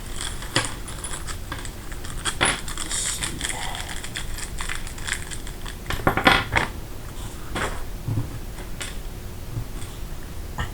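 Small metal gun parts from an AR lower parts kit clicking and rattling as they are handled, with a louder clatter about six seconds in.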